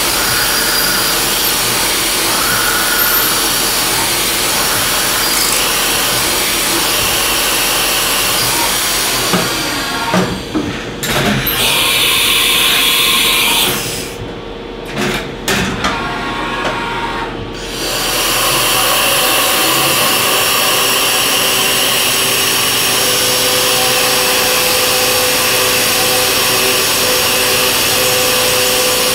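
1995 Haas VF-3 CNC vertical mill cutting a metal soft-jaw block with an end mill: a steady cutting noise with a whine. About ten seconds in the cut breaks off and the spindle lifts clear, leaving a quieter spell with a brief high whine and a few clicks. The cut resumes about eighteen seconds in and runs steady again.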